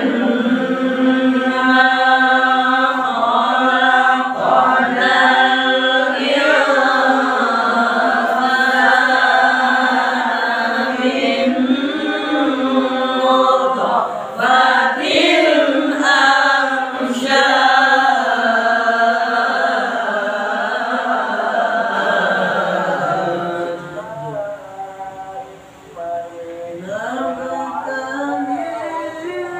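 Male voices reciting the Qur'an in the melodic tilawah style: long ornamented phrases drawn out on held notes that bend up and down. There is a short break near the end, then the recitation resumes.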